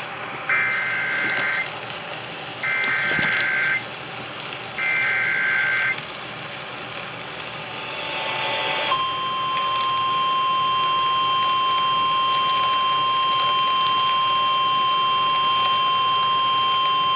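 Emergency Alert System activation for a severe thunderstorm warning. Three short screeching bursts of digital SAME header data, each about a second long with about a second between them, then after a pause and a brief rush of noise a single steady alert tone from about nine seconds in.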